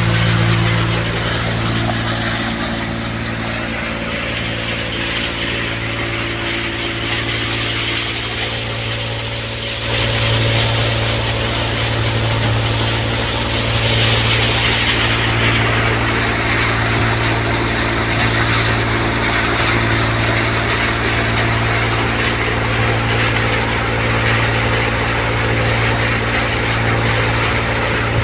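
Tractor-driven mini side tokri thresher running steadily while threshing chickpeas. The tractor engine's low drone, with a slow regular throb, sits under a broad rushing machine noise. It all gets louder about ten seconds in.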